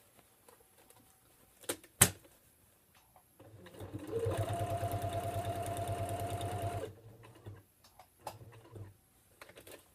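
Janome computerized sewing machine topstitching along the edge of a fabric envelope: after a sharp click about two seconds in, the machine speeds up into a fast, even stitching rhythm, runs steadily for about three seconds, then stops.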